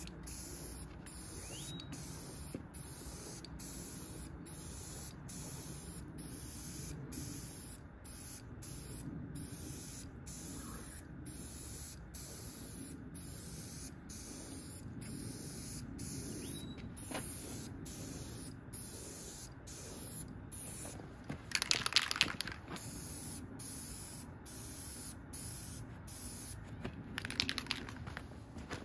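Aerosol spray-paint can hissing in short bursts with brief breaks between them, repeated many times as a coat of paint goes onto a metal amplifier chassis. Two louder, rougher bursts of noise come about three quarters of the way in and again just before the end.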